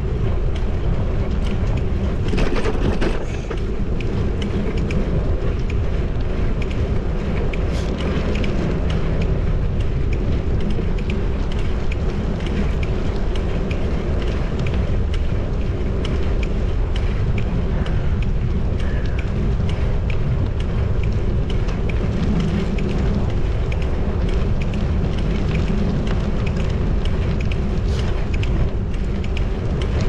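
Strong wind buffeting the microphone of a GoPro Hero 10 on a moving bicycle: a steady low rumble.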